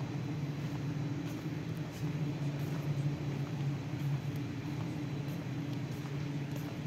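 Steady low hum of a large train-station concourse, with faint scattered ticks.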